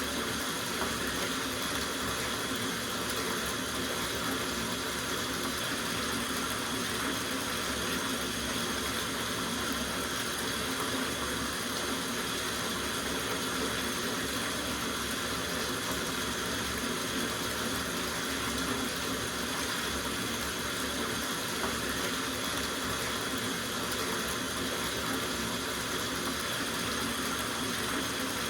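Tap water running steadily into a soaking bathtub, an even rushing splash with no change in flow.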